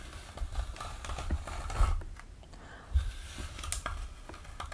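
Fingers with long nails working through wig hair close to the microphone: soft rustling with many small irregular clicks and a few dull thumps.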